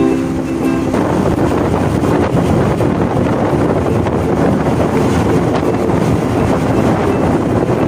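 Wind rushing over the microphone of a moving motorcycle, with the bike's running and road noise underneath. A ukulele music track cuts off about a second in.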